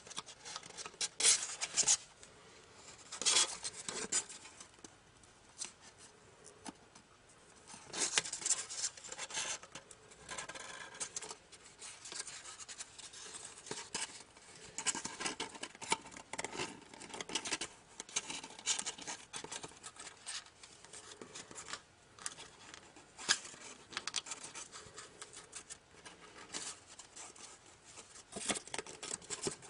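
Origami paper being folded and creased between the fingers: irregular crinkling and rustling, with sharper crackles now and then.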